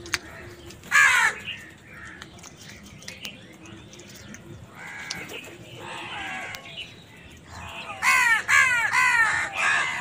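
House crows cawing: a single loud caw about a second in, softer calls around the middle, then a quick run of about five loud caws near the end.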